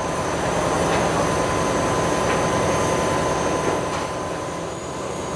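Excavator-mounted drilling rig running: the Volvo EC300E excavator's diesel engine running steadily under a dense mechanical noise, with a thin steady whine over it.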